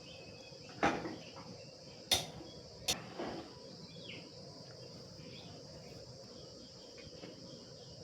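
Three sharp clicks or taps, about a second, two seconds and three seconds in, over a steady high hiss.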